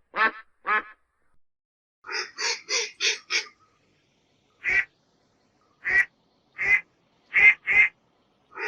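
Duck quacking: two calls at the start, a quick run of five quacks about two seconds in, then single quacks about a second apart.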